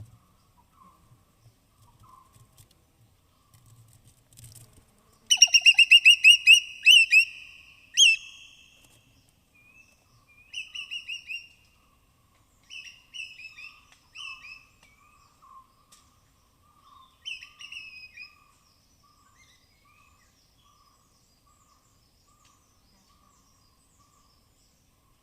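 Rapid series of high-pitched chirps from a small animal, several notes a second, in bursts. The loudest and longest run comes about five seconds in, followed by shorter runs, and a fainter, lower chirp repeats steadily underneath through the middle.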